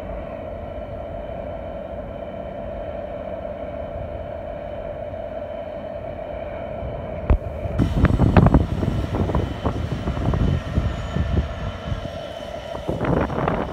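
Class 66 diesel locomotive's two-stroke EMD V12 engine idling with a steady drone. About seven seconds in comes a sharp knock, then a run of loud clanks and bangs, with more near the end.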